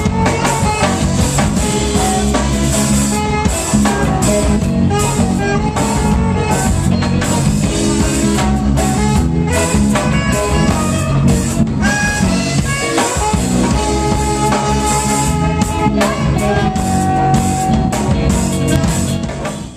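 Live reggae band playing: a Yamaha Rock Tour drum kit with guitar and other instruments, loud and continuous, cutting off abruptly at the very end.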